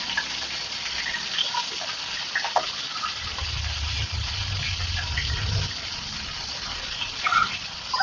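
Pieces of pindang tuna frying in hot oil in a wok: a steady sizzle with many small scattered crackles.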